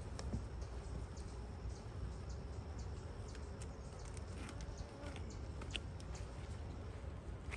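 Honeybees buzzing around an open hive, with scattered light clicks and small knocks, over a steady low rumble.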